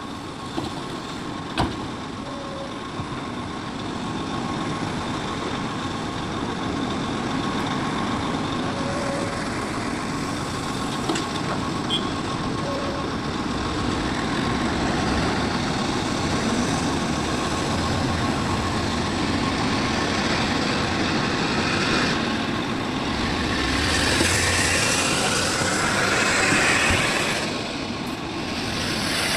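Heavy diesel engines of a Sumitomo SH350 excavator and a dump truck running steadily while loading. A few sharp clicks come in the first two seconds, and the machinery grows louder and brighter for a few seconds near the end.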